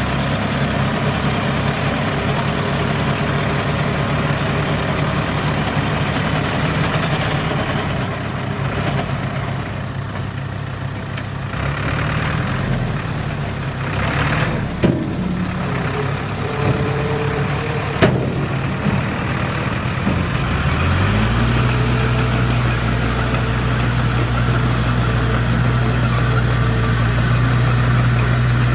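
A heavy diesel engine running, rising to a higher steady speed about two-thirds of the way through, with a few sharp metallic knocks before that.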